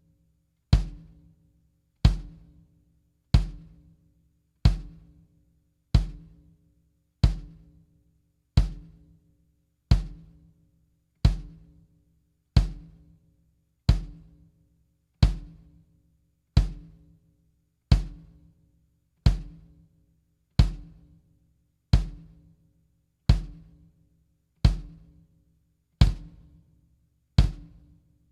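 Drum kit struck once about every 1.3 seconds in a slow, perfectly even pulse, each hit ringing briefly before the next.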